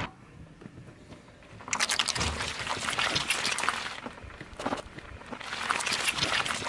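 Car tyre rolling slowly over a red translucent block and its broken pieces, crushing them with a crackling crunch. The crunching comes in two spells, the first starting about two seconds in and the second near the end, with a short crack between them.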